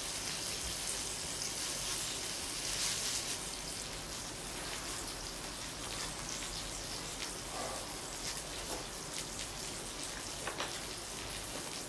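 Beef and vegetables sizzling on paper in a small ceramic tabletop grill over a burner flame: a steady hiss with faint scattered pops.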